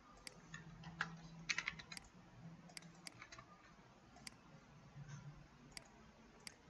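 Faint, scattered clicks of a computer keyboard and mouse, with a quick run of keystrokes about one and a half seconds in.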